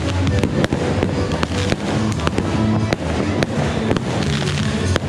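Aerial fireworks going off in quick succession: a dense run of sharp bangs and crackles, with music playing underneath.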